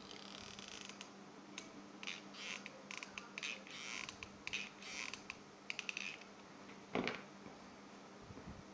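A hot glue gun is squeezed onto quilled paper rings being pressed together, making a run of short creaks and crackles. About seven seconds in there is a single knock as the glue gun is set down on the table.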